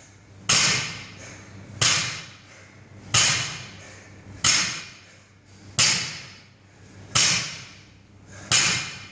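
Loaded barbell with rubber bumper plates touching down on the floor at each deadlift rep: a thud with a short ringing tail about every 1.3 seconds, seven times.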